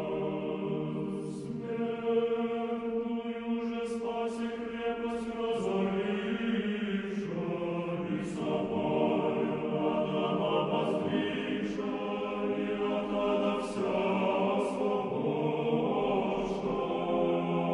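Choir chanting in slow, held chords that change every few seconds, with the singers' hissing consonants heard now and then.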